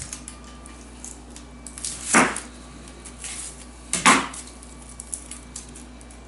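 Chef's knife trimming a whole onion on a plastic cutting board: two short knife strokes about two seconds apart, with faint crackling of the dry onion skin as it is peeled.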